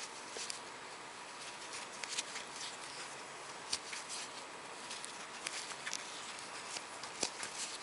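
Faint, irregular scratching and light ticks of a metal crochet hook catching and drawing yarn through stitches, with fingers handling the yarn, over a steady low hiss.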